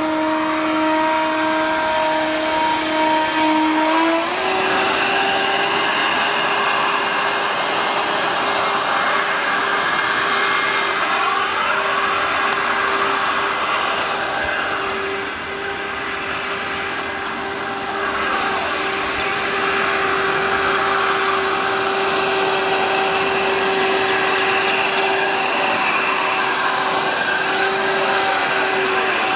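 Twin electric ducted fans of a homemade RC air boat running flat out: a steady high whine over a rushing hiss, stepping up in pitch about four seconds in and then holding.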